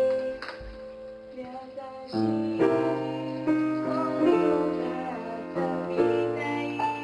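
A woman singing to upright piano accompaniment. The piano softens for the first couple of seconds, then fresh chords come in about two seconds in.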